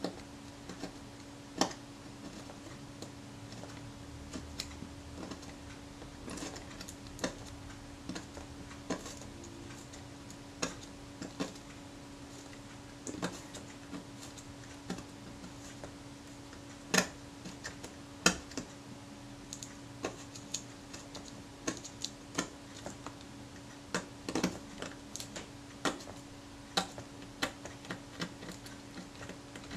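Scalpel blade scraping against the aluminium camera door as it splits the leather covering away, the blade held hard against the metal, giving irregular sharp ticks about a second apart. A steady low hum runs underneath.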